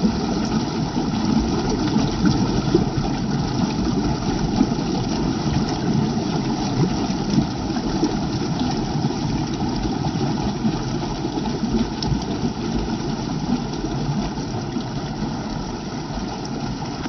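Waterfall, a steady rush of falling water with no let-up.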